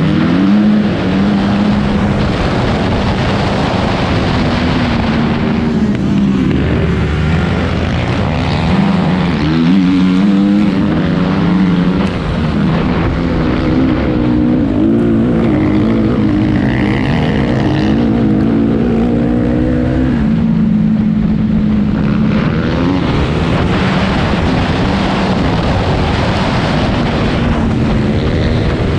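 Honda CRF250R motocross bike's single-cylinder four-stroke engine at race pace, its revs rising and falling every few seconds with throttle and gear changes.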